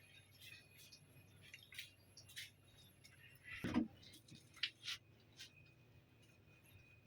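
A few faint scattered clicks and light knocks of objects being handled, with one louder thump a little past halfway through.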